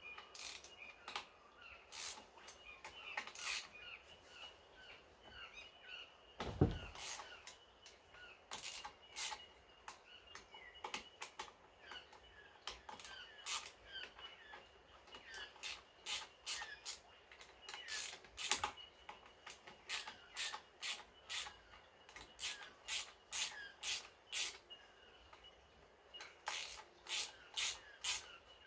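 Faint, irregular clicks and clinks of hand tools and metal parts, some in quick runs of several a second, with small birds chirping in the background.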